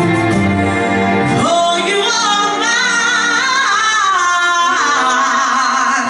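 A woman singing live with a band: after sustained band chords the bass drops out about a second and a half in, and she holds a long, high, ornamented note with wide vibrato over the held accompaniment, fading out at the close.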